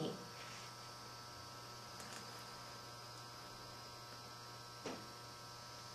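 Steady low electrical hum of room tone, with two faint soft touches, about two seconds in and near the end.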